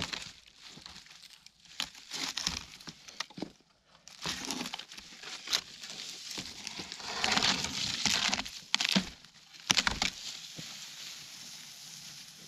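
Irregular crunching and rustling of hands working natural material, with a few sharp snaps or knocks. The densest crunching comes around the middle and the sharpest snap about 10 s in.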